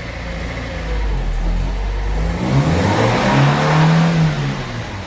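Daewoo Nexia's four-cylinder petrol engine running steadily, then revving up about two and a half seconds in, in third gear. It spins the jacked-up front wheel as a test for front wheel-bearing hum, and the pitch rises and eases off near the end.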